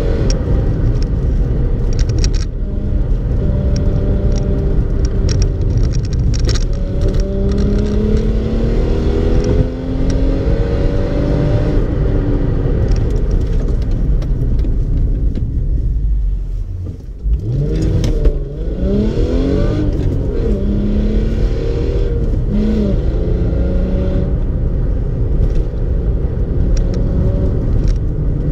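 In-cabin sound of a VW Golf V6 4Motion's 2.8-litre VR6 engine on the move over steady road rumble. The engine pitch climbs several times as the car accelerates through the gears. About 17 s in the sound drops briefly before the revs rise and waver up and down.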